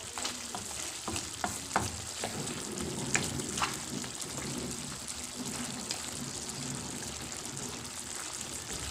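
Chicken pieces sizzling in a metal wok in their own released juices and oil, stirred with a wooden spatula, with a few sharp knocks and scrapes of the spatula against the pan in the first few seconds.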